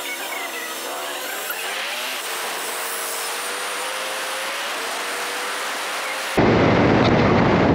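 Motorcycle riding on the road, its engine pitch gliding up and down. About six seconds in there is an abrupt jump to a loud, steady rush of wind noise on the microphone.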